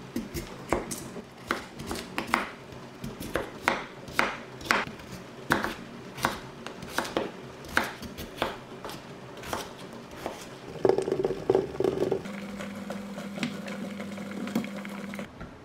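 A knife chopping a peeled potato on a wooden cutting board, a sharp knock at each stroke, one or two a second. About eleven seconds in there is a brief louder clatter, then a steady low hum.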